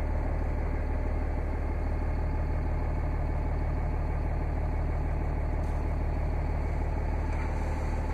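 A 2006 Dodge Ram 3500's 24-valve Cummins turbo diesel inline-six idling, heard from inside the cab as a steady low drone.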